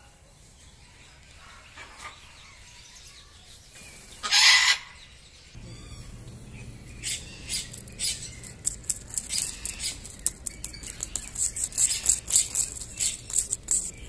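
A palm cockatoo gives one short, harsh screech about four seconds in. After that comes a dense run of short, sharp crackles and ticks that quickens toward the end.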